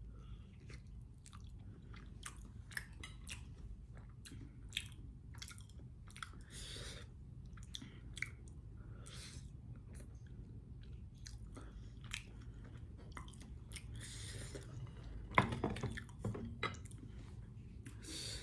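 A person chewing Korean chewy potato pieces close to the microphone, with a steady run of small mouth clicks and smacks. A few louder knocks about fifteen seconds in.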